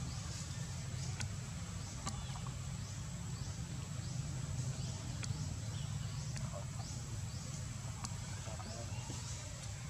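Outdoor tree-canopy ambience: a high, rising chirp from an unseen insect or bird repeats steadily about every two-thirds of a second over a constant low rumble, with a few faint clicks and brief chirps.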